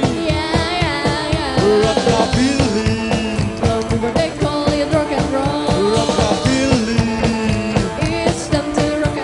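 A live band playing rock and roll: upright bass, electric guitar and drums with a steady beat, and a man singing over them.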